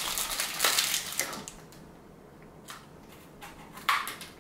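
Rustling and handling of a snack package as it is opened, then a few faint clicks and taps.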